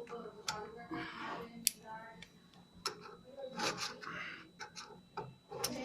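Small screwdriver working in the notch of a door latch lock to release a stuck latch: irregular sharp clicks with scraping between them.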